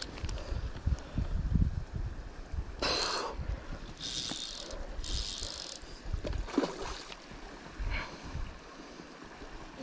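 Wind rumbling on a chest-mounted microphone, with handling noise from playing a salmon on a fly rod. There are a few short hissing rasps about three, four and five seconds in, as the fly line is drawn in by hand.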